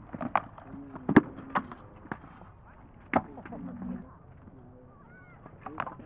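Swords striking shields and armour in armoured combat sparring: about half a dozen sharp knocks, the loudest about a second in, with a few voices calling out between the blows.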